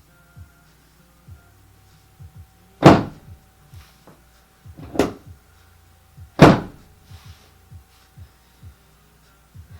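Chiropractic drop table's sections dropping under adjustment thrusts: three loud thunks, the first about three seconds in and the next two about two and one and a half seconds apart, the middle one softer.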